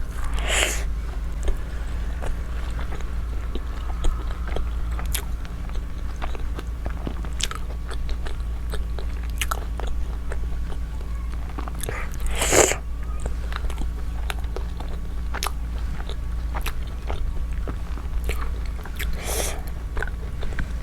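Close-miked eating of a fried potato chop: steady chewing with many small wet mouth clicks, and three louder bites, about half a second in, near the middle and near the end.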